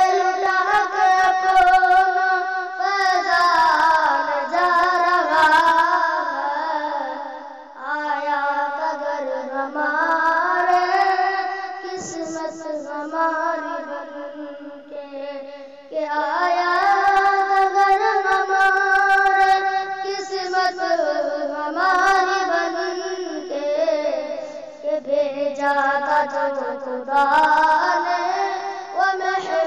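A boy singing an Urdu kalam bidding farewell to the month of Ramzan, in long held phrases with a wavering pitch and short pauses between them.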